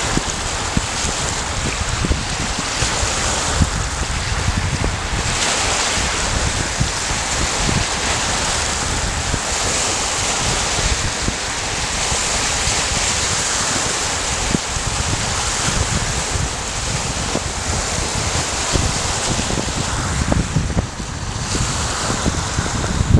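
Small freshwater lake waves breaking and washing over a pebble shore, with wind buffeting the microphone as a low, uneven rumble.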